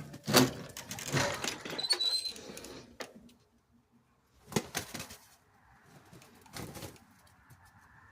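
Chickens clucking and scuffling in a few bursts, loudest in the first three seconds and again twice later.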